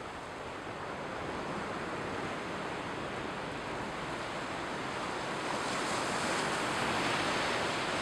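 Mediterranean surf washing onto a sandy beach, a steady rush of waves that swells louder over the last few seconds.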